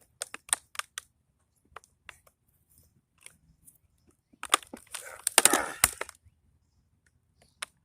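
Plastic appliance housing being pried apart by hand: a few sharp clicks and knocks, then about a second and a half of loud cracking and clattering near the middle as the plastic gives way.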